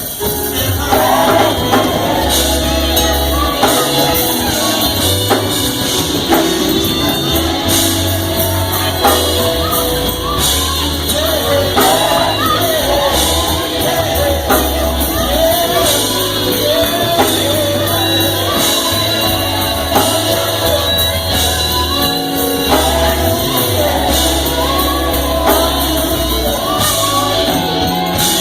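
Gospel choir singing with a live band: voices over a steady bass line and percussion.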